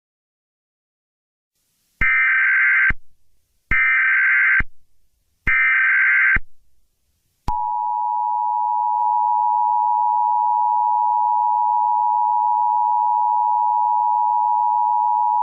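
Emergency Alert System signal: three short bursts of the warbling SAME header data tones, about a second apart, followed about 7.5 seconds in by the steady two-tone attention signal, a pair of tones just under 1 kHz, held to the end.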